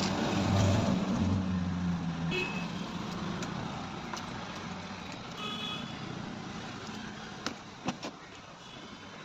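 Road traffic going by: a vehicle engine rumbling low for the first two seconds, short horn-like beeps twice, and two sharp clicks near the end.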